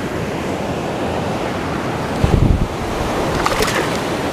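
Steady rush of river water flowing over a low dam's spillway and through the shallows, with a brief low thump of wind or handling on the microphone about halfway through and a few light splashes soon after.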